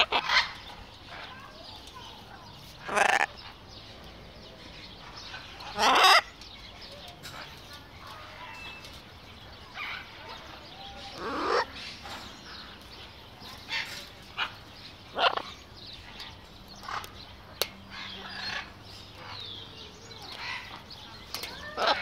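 Large parrot squawking: three loud, harsh calls of about half a second each in the first six seconds, then shorter, softer squawks spread through the rest.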